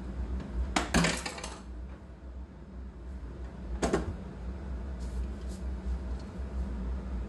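Metallic clinks and knocks against a stainless steel mixing bowl: a quick cluster about a second in, then a single knock near four seconds and a few faint ticks after it.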